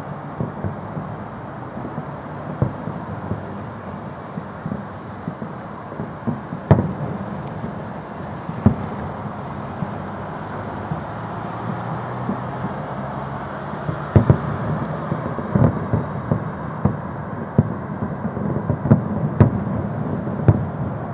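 Fireworks salute bangs, many sharp reports at uneven intervals, coming thicker in the second half, over a steady low rumble of city traffic.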